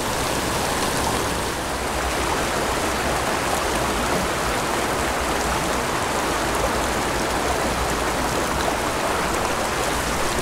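Small mountain creek rushing steadily as it pours over a little cascade and runs across rocky riffles.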